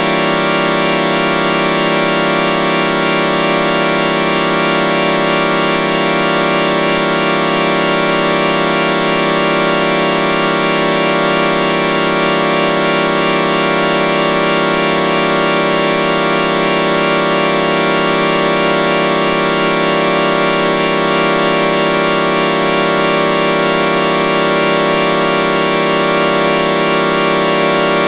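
Vocoder sound effect: a sustained electronic organ-like chord droning at a constant level, with a gentle regular wavering in some of its tones.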